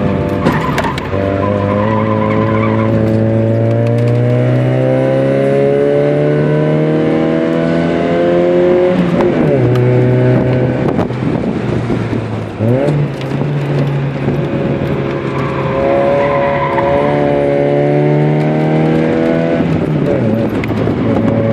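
Nissan B13's 1.6-litre GA16 four-cylinder engine, heard from inside the cabin at full throttle on track. The revs climb steadily for several seconds and fall away about nine seconds in. After a brief dip and quick jump near thirteen seconds they climb steadily again, then fall away near the end.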